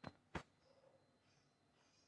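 Two short, sharp clicks about a third of a second apart against near silence.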